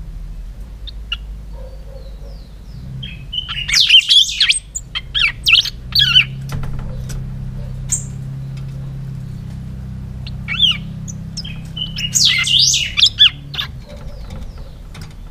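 Caged picahueso singing two bursts of quick whistled notes that glide up and down, one about three seconds in and another about ten seconds in, over a steady low hum.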